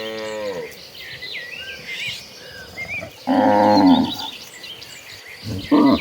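Cows mooing: a call that falls away at the start, a loud moo lasting nearly a second about three seconds in, and a short one near the end, with high short chirps in the background.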